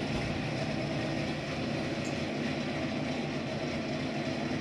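Steady mechanical drone with a constant low hum from the running wall oven, an oven that has made an abnormal noise since move-in and that the owner says needs a repairman.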